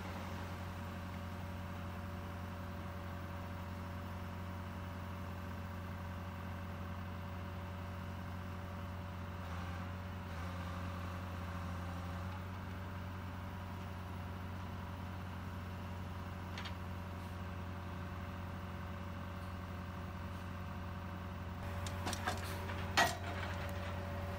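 Heavy diesel engines of a tracked log loader and a log truck running steadily, a low even drone. Near the end a few sharp metal clanks and clicks.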